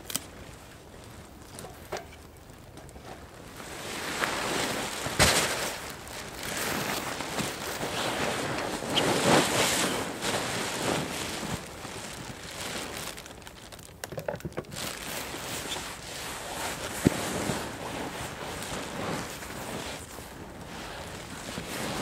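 Wind gusting, swelling into long rushes and easing off again, with a couple of sharp clicks.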